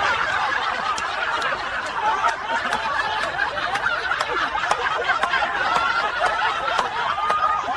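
Several people laughing together at once, a dense, steady stretch of overlapping laughter.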